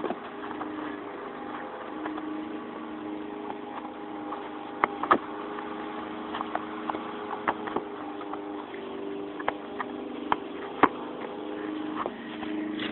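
Scattered light clicks and taps from parts being handled by hand, over a steady mechanical hum.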